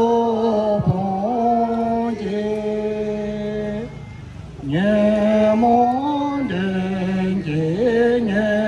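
Chanting: long, held sung phrases that step up and down in pitch, with a short break about four seconds in.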